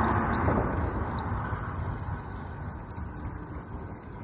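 Engine noise of a passing vehicle fading away over the first couple of seconds, leaving a low outdoor rumble. Faint high-pitched chirps repeat about three times a second throughout.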